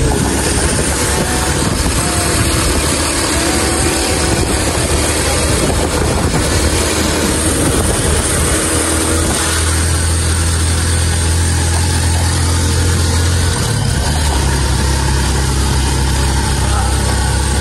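Engine of a moving vehicle running steadily, heard from inside the cab with wind and road noise. Its low hum shifts in pitch about three-quarters of the way in.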